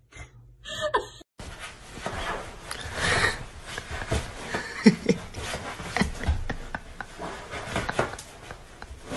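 A person laughing and speaking in short bursts, over busy, noisy background sound.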